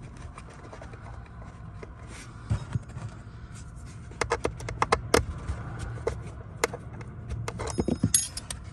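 Small, irregular clicks and light scraping of a thin driver tool and screw against the plastic cabin air filter housing as the cover is fastened, starting about four seconds in, over a steady low hum.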